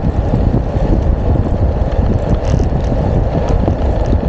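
Wind buffeting the camera's microphone as a bicycle rolls along the road at speed, with a steady low rumble of tyres on the tarmac.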